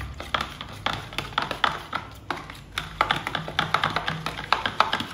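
Metal spoon stirring a thick ketchup-and-mayonnaise sauce in a plastic bowl: quick, irregular clicks and taps of the spoon against the bowl's sides.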